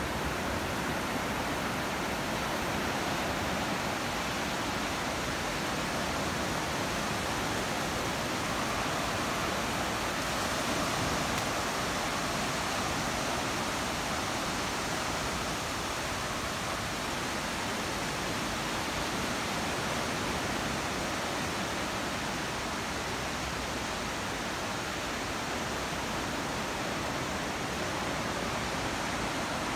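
Steady wash of surf breaking and running up a sandy beach.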